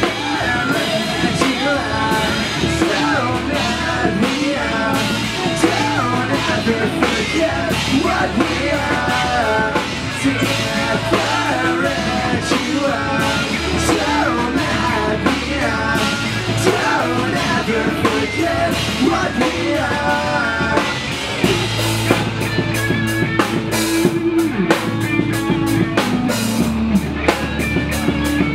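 Live pop-punk rock band playing: electric guitars, bass and drum kit, with a singer's voice over most of it. About 21 seconds in the vocal drops out and the drums hit in a fast, even beat under held guitar chords.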